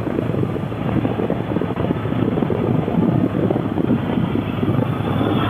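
Motorcycle running steadily at road speed, with wind rushing and buffeting over the microphone.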